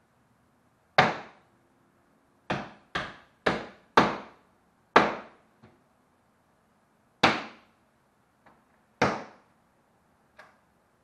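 Hammer blows on a wooden door frame: a single blow, then four quick ones about half a second apart, more spaced blows after that, and a few lighter taps in between.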